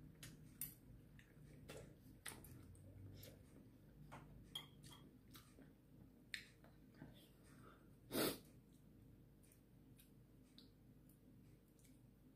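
Quiet eating sounds: faint scattered clicks of a metal spoon and chopsticks against a stainless steel pot. About eight seconds in comes one short, louder breathy sound, a slurp or sniff.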